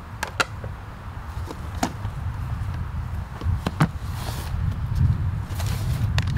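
Plastic golf discs clacking together and the bag rustling as discs are set down and pulled out of a disc golf backpack: a few sharp clicks spread out, with rustling near the end, over a steady low rumble.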